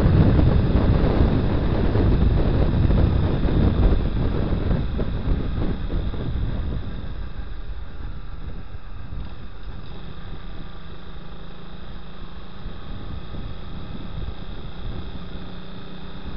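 Wind buffeting the microphone of a 2010 Honda Twister 250 motorcycle at road speed, with the single-cylinder engine running underneath. The wind rush eases off about six seconds in as the bike slows, leaving a quieter, steadier engine note.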